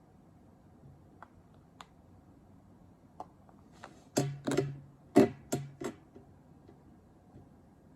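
A guitar plucked or strummed five or six times in quick succession, starting about four seconds in. Each note rings briefly, and a few faint clicks come before them.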